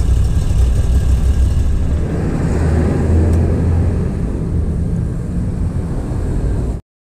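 Moto Guzzi V85TT's air-cooled transverse V-twin running on its stock exhaust, a low, rough, hoarse sound that cuts off suddenly near the end.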